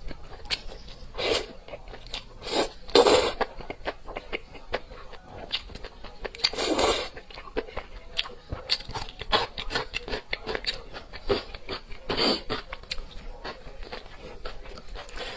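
Close-miked chewing and crunching of food in the mouth, a steady run of small wet clicks with a handful of louder bites.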